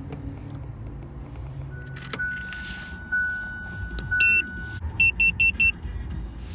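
Low rumble of a running vehicle engine. Over it, a steady electronic tone sounds for about three seconds, followed by one longer beep and then four quick beeps.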